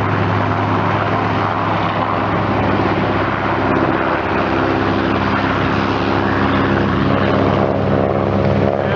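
Propeller airplane engine running steadily as the plane flies its aerobatic routine; a higher engine tone joins about seven seconds in.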